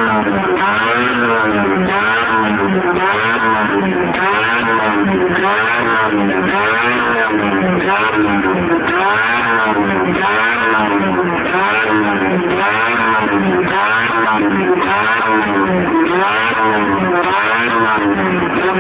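Proton Satria 1.5L four-cylinder engine heard through its dual exhaust, revved up and let fall again about once a second in a steady series of blips, the way it is revved to make the exhaust spit flames.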